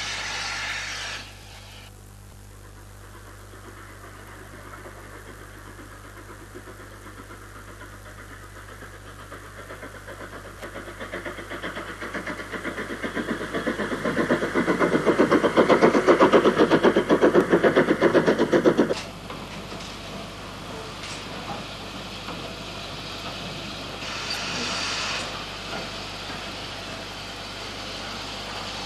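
Steam locomotive working hard, its rapid, rhythmic exhaust beats growing steadily louder, then cutting off abruptly about two-thirds of the way through. A short burst of hiss comes near the start and again near the end.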